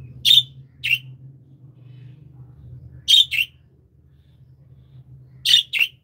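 Budgerigars calling: six short, sharp chirps in three pairs, one pair near the start, one about three seconds in, and one near the end. A low steady hum runs underneath.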